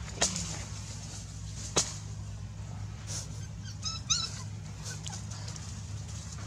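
A quick run of about five short, high, rising chirping calls from an animal about four seconds in, after two sharp clicks, over a steady low hum.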